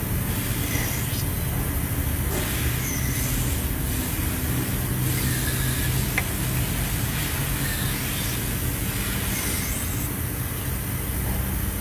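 Several short hisses of a WD-40 aerosol can sprayed into the cylinder head bolt holes of an engine block, to soak dirty threads, over a steady low engine rumble.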